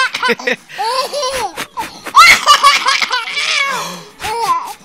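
Baby giggling in repeated bursts of high-pitched laughter, with short pauses between them.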